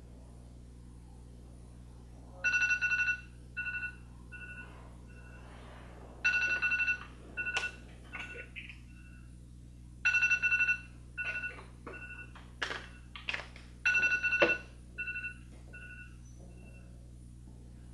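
A mobile phone's electronic tone pattern, a held two-note tone followed by several short beeps, repeating four times about every four seconds, with a few sharp clicks among the repeats.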